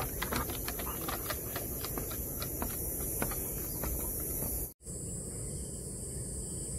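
Steady high-pitched drone of cicadas, with quick, irregular light ticks from steps on the wooden boardwalk. The sound cuts out for an instant a little under five seconds in, and after that the drone goes on with fewer ticks.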